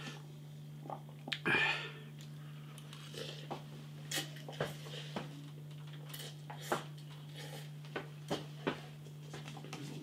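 A person eating very spicy noodles: scattered sharp clicks and small wet smacks of chewing and utensils, with a short breathy hiss about one and a half seconds in, over a steady low hum.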